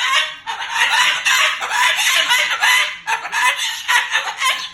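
Moluccan cockatoo squawking and chattering loudly in a long, harsh run, with short breaks about half a second and three seconds in.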